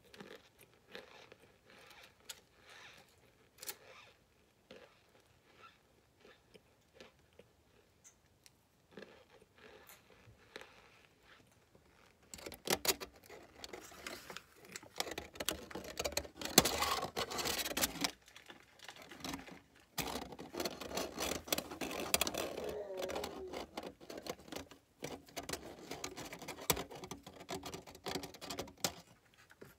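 For about the first twelve seconds, soft crunches and clicks of a chunk of cornstarch being chewed. About twelve seconds in come louder, dense crackles of aluminium foil crinkled close to the microphone, with cornstarch chunks crunching in it.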